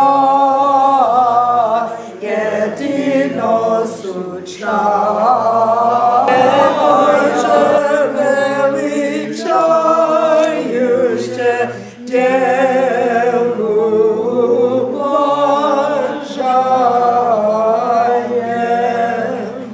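A congregation singing an Orthodox church hymn together, unaccompanied, in a string of sung phrases with brief pauses for breath between them.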